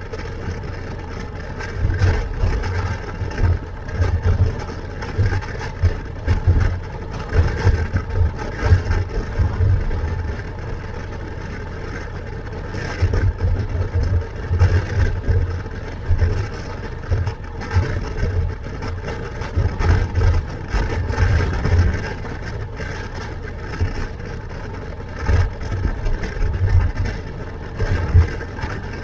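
Motorcycle running at steady road speed, its engine and tyre noise under a constant rush, with wind buffeting the helmet-mounted microphone in irregular low gusts.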